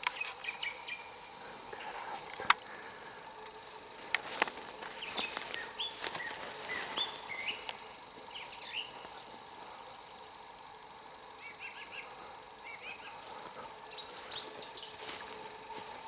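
Wild songbirds singing and calling: many short high chirps and brief gliding whistles, busiest in the first half and again near the end. A few sharp clicks cut in, the loudest about two and a half seconds in.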